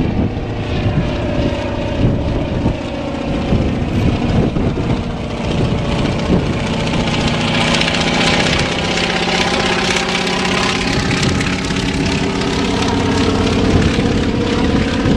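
Antonov An-2 biplane's nine-cylinder radial engine and propeller droning steadily in a flyover. The pitch drifts as it passes, and it is loudest around the middle.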